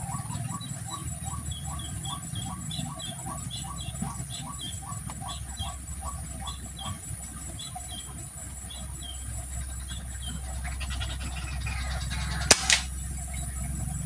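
A bird calling one short note over and over, about three times a second, for the first seven seconds. Then, about twelve and a half seconds in, a single sharp crack of a scoped air rifle firing, with a smaller knock just after it.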